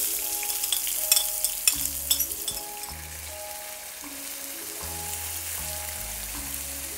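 Chopped onions sizzling in hot oil in a frying pan as pieces of beef liver go in, with sharp clicks and spits in the first two seconds. The sizzle starts loud and settles to a steadier, quieter frying. Background music with a bass line plays under it.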